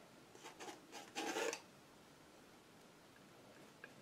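Steel palette knife scraping through thick acrylic paint: a few soft rubs, then a short, louder scrape of about half a second a little over a second in. Near the end come light ticks as the knife starts tapping paint onto the canvas.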